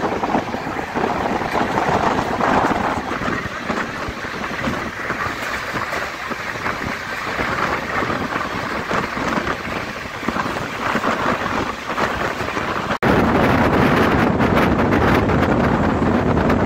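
Wind buffeting the microphone over the running noise of LHB passenger coaches moving at speed, heard from an open coach door. About 13 seconds in it cuts abruptly to a louder, deeper rush.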